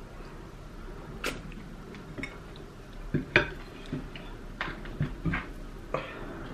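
Eating sounds: scattered short wet clicks and mouth smacks from eating pounded yam and okra soup by hand. One sharper clink comes about three seconds in, as a ceramic bowl is set onto a plate.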